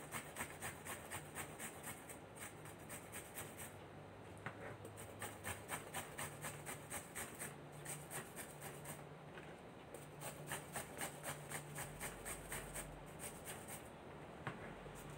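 Food being grated on a flat handheld metal grater: quick, rhythmic scraping strokes, about three a second, in runs with short pauses between them.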